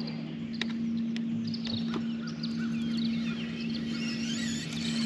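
Birds singing in a dawn chorus, many overlapping short chirps and whistles, over a steady low hum, with a few sharp clicks.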